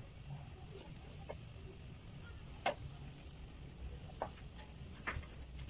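Semolina-coated potato slices shallow-frying in a little oil in a nonstick pan on a low flame: a faint, steady sizzle with a few sharp clicks, the loudest nearly three seconds in.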